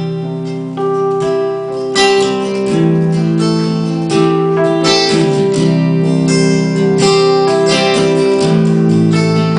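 Acoustic guitar strumming held chords, an instrumental passage of a song with no voice.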